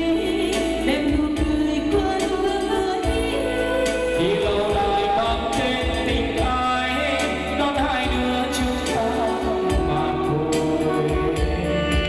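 Background music: a sung love song with instrumental backing, playing steadily.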